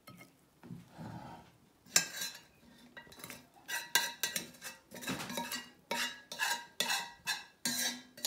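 Metal spoon scraping and knocking against the inside of a red enamelled casserole pot, about two strokes a second from about two seconds in, loosening the crunchy crust of rice stuck to the pot's base.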